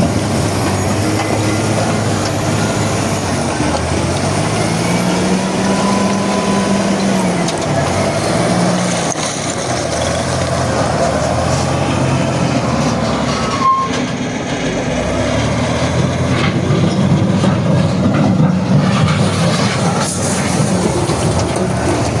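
Heavy machinery at a rock crushing plant running continuously, with a diesel engine revving up a few seconds in and settling back down over the steady rumble of the crusher.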